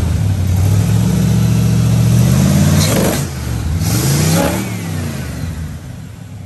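Chevy 350 small-block V8 revving: the engine speed climbs steadily for about three seconds, drops back, then rises and falls in a second, shorter rev before easing toward idle. It has just been given new spark plugs and plug wires.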